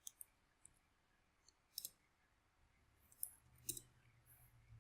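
Near silence broken by a few faint, sharp clicks from computer input, some in quick pairs, spread over a few seconds.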